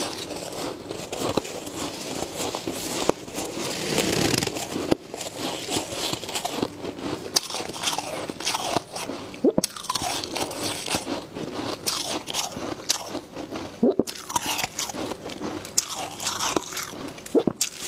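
Close-miked crunching of soft, powdery freezer frost as gloved hands dig into the pile and squeeze it into a clump, then as it is bitten into, with dense fine crackling throughout.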